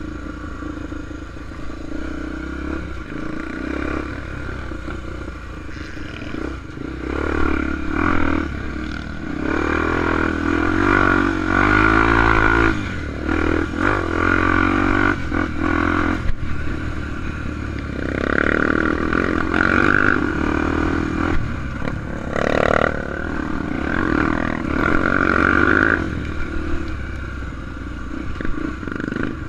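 Honda Tornado single-cylinder enduro motorcycle engine running while being ridden, its pitch rising and falling as the throttle is opened and closed, with a few sharp knocks.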